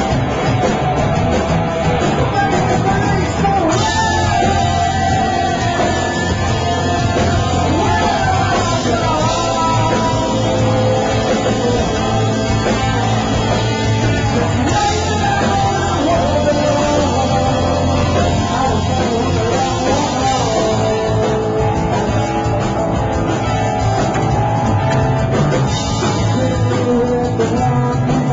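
Rock band playing live, with singing over electric guitars and drums, loud and steady throughout.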